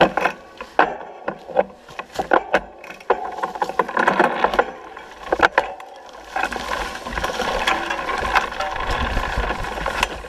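Mountain bike ridden fast down a bumpy dirt singletrack: the bike rattling, with sharp knocks as it hits bumps. From about six seconds in, a steady rushing noise of the ride sets in under the rattling.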